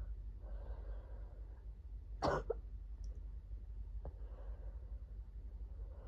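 A person coughs once, sharply, about two seconds in, with a short second catch right after it. Quiet breathing comes before and after.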